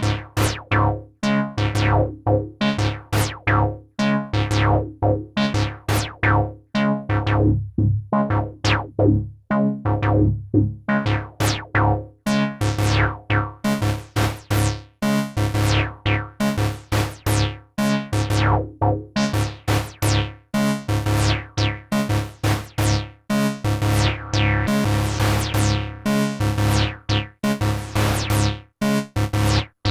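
IK Multimedia UNO Synth, a monophonic analog synthesizer, playing a run of short, punchy bass notes, each with a bright filter sweep that closes quickly. The notes grow brighter and buzzier near the end as the filter opens further.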